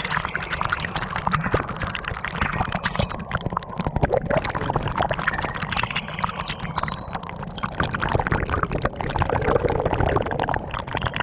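Water pouring and splashing steadily through a gold prospector's fluid bed.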